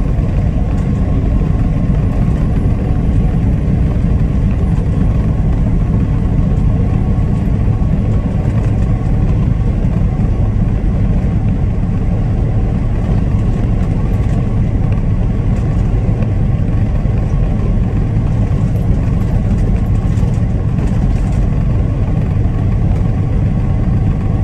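Steady road noise heard inside a moving truck cab: a low, even rumble of engine and tires on the road, with no breaks.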